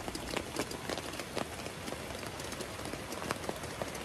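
Rain falling on a fabric awning: a steady hiss with many irregular ticks of single drops striking.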